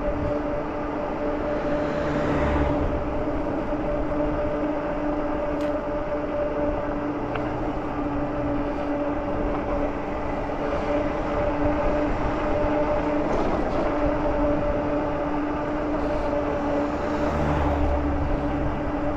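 Engwe Engine Pro e-bike rolling downhill on asphalt at about 16 mph: a steady two-note hum from its motor and tyres over a rush of wind on the microphone, with the noise swelling briefly about two seconds in and near the end.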